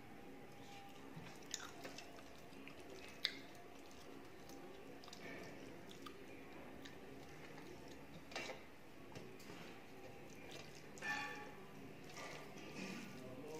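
Faint eating sounds of a person eating rice and fried fish by hand from a steel plate: soft chewing and mouth smacks with squishes of rice being mixed by hand, broken by a few sharp clicks and brief louder smacks.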